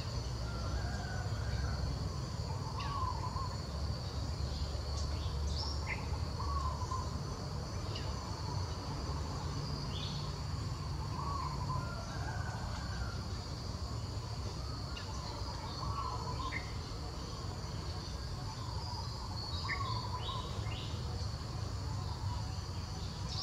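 Forest ambience: a steady high-pitched insect drone, with brief chirps and a short wavering call that recurs every two seconds or so, over a low rumble.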